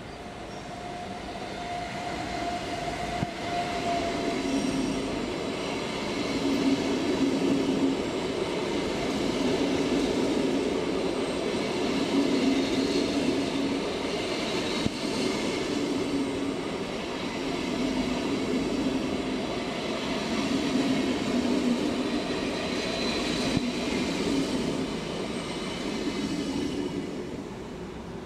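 Electric locomotive-hauled passenger train passing close by, growing louder over the first few seconds and fading away near the end. The wheels make a steady rumble with a beat that repeats about every two and a half seconds, and there is a faint high whine at the start as the locomotive comes by.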